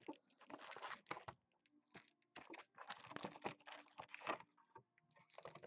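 Foil packs of 2015 Prestige football cards rustling and clicking against each other and the cardboard box as they are lifted out by hand. The sound comes in quick, irregular bursts.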